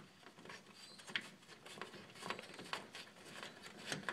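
Faint, scattered light clicks and scrapes of a Phillips screwdriver working a screw loose at the grille of a 1988–98 GM pickup.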